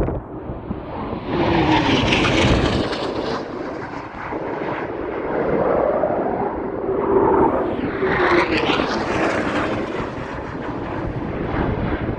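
Two Eurofighter Typhoon jets passing low one after the other, each a swelling jet roar that falls in pitch as it goes by.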